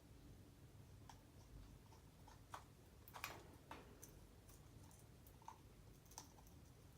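Near silence with faint, scattered clicks, a few of them close together about two and a half to four seconds in.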